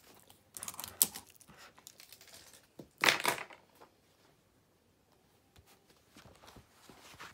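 Books and papers being handled on a desk: two bursts of paper rustling, about half a second and three seconds in, with a sharp tap, then a few light clicks and knocks.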